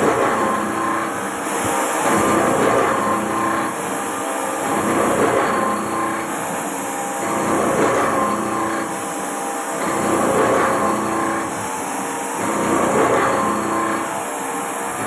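Haas CNC machine running while machining a tool post: a steady mechanical noise with several held tones, swelling and easing about every two and a half seconds.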